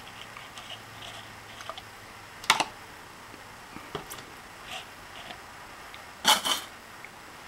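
Thin plastic cups handled and set down on an enamel stovetop: scattered faint clicks, a sharp tap about two and a half seconds in, and a louder double knock about six seconds in.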